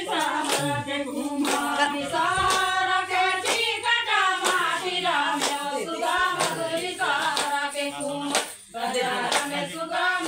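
A group of women singing a Surgujia Suva folk song together while clapping their hands in a steady rhythm, about two claps a second. The singing breaks off briefly about three-quarters of the way through.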